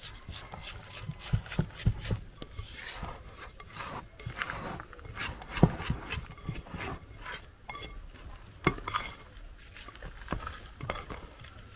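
Mashed ripe plantain being mixed with corn starch in a glass bowl: soft stirring and squishing with irregular knocks against the bowl, the sharpest a little before halfway through.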